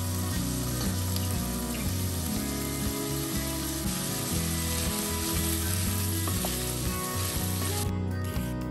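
Chopped onion and celery frying in olive oil in a stainless steel pot, a steady sizzle that cuts off near the end, over background music.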